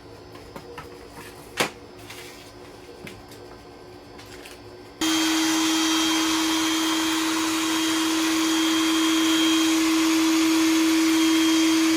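A few light clicks, then an electric motor switches on suddenly about five seconds in and runs steadily with a constant hum and a loud rushing hiss.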